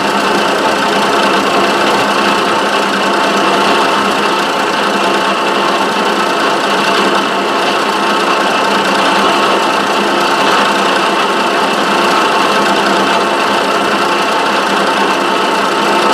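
Milling machine running steadily, a 5/8-inch end mill cutting a slot in a Delrin block.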